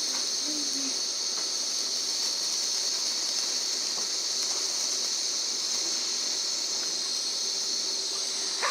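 Gas torch flame hissing steadily as it heats a solder joint on a tin toy biplane.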